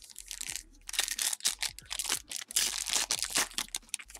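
A 2017-18 Panini Ascension basketball card pack being torn open by hand, its foil wrapper crinkling and crackling in quick irregular bursts. The crinkling is loudest from about a second in until shortly before the end.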